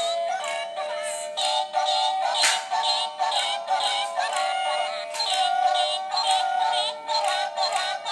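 Frog alarm clock's alarm: an electronic tune with a synthesized singing voice, played continuously through its small speaker.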